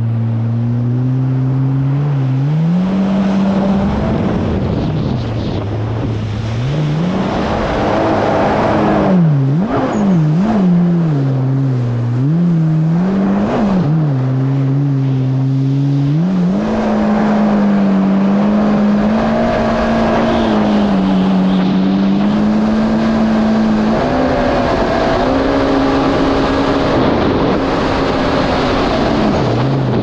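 Yamaha GP1800R SVHO jet ski's supercharged four-cylinder engine running under way, with water rushing and spraying around the hull. The engine pitch climbs a couple of seconds in, rises and falls quickly several times as the throttle is worked in the middle, then holds fairly steady and drops near the end.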